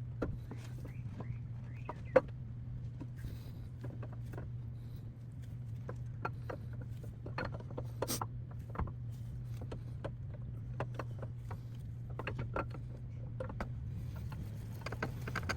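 Scattered light clicks and knocks of parts and tools being handled, the sharpest about two seconds in, over a steady low hum.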